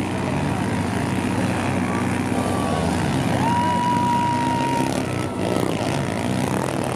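Several 140cc four-stroke pit bike engines racing, revving up and down as the bikes work through the turns. A steady high tone is held for about a second and a half midway through.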